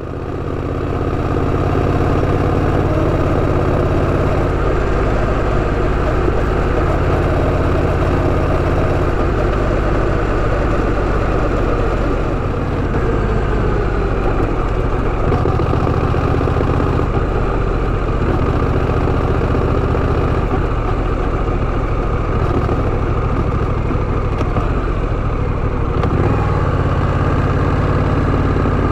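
Honda Rebel 1100 DCT motorcycle's parallel-twin engine running steadily, fading in over the first second or two.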